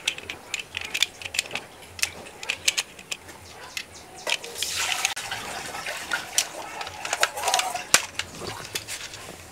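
Irregular plastic clicks and rattles as toy bullet-shaped cartridges are pressed one by one into a toy M16's plastic magazine, with a brief rustling scrape about five seconds in.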